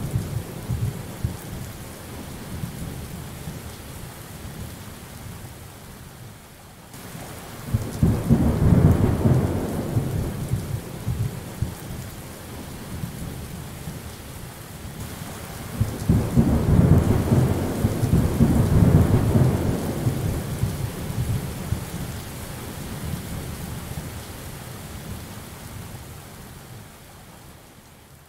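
Thunderstorm ambience: steady rain with rolling thunder. The rumbles fade over the first few seconds, swell again about eight and sixteen seconds in, and the sound fades out near the end.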